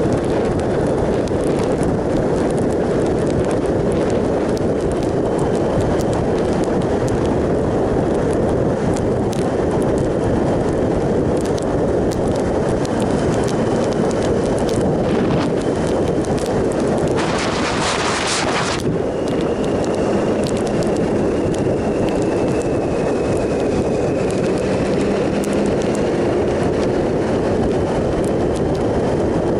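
Steady wind rush over the microphone of a 2007 Triumph Sprint ST 1050 riding at an even speed on a wet road, with its three-cylinder engine blended underneath. A brief, louder hiss comes about two-thirds of the way through.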